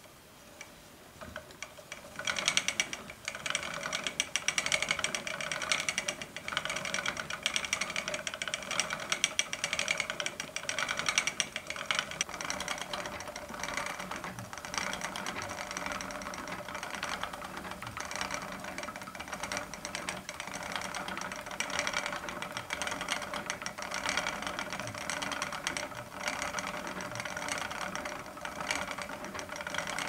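Old wooden spinning wheel running as wool is spun: a steady whir from the spinning flyer with a fast, even rattling clatter from the wheel's moving parts, starting about a second or two in.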